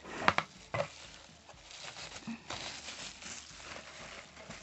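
Bubble wrap rustling and crinkling as it is pulled aside, with two sharper crackles in the first second.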